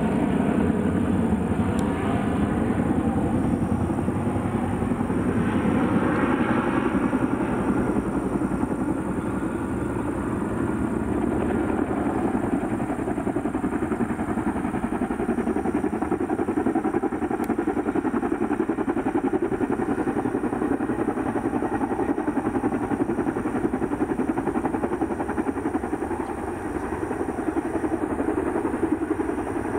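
Boeing CH-47 Chinook tandem-rotor helicopter coming in low and hovering to land, its twin rotors and turbine engines making a steady, rapidly pulsing rotor noise.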